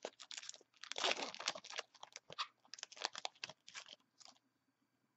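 Wrapper of a 2012 Bowman football card pack being torn open and crinkled by hand, a dense irregular crackling that stops about four seconds in.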